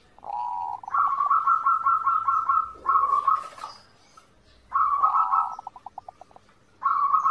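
Zebra dove (perkutut) singing its cooing song: four phrases of quick, repeated coo notes with short pauses between them, one phrase ending in a run of fast pulses.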